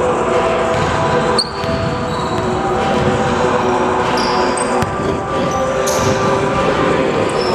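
Basketball bouncing on a hardwood gym floor, with short sneaker squeaks in the reverberant hall, over a steady multi-tone hum.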